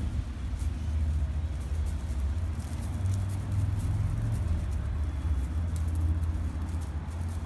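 A low, uneven rumble.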